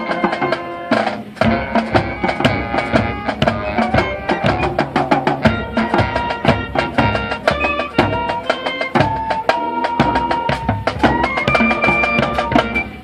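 High school marching band playing: brass and woodwinds hold chords over a steady drumline beat. The music cuts off sharply at the end, the close of a phrase.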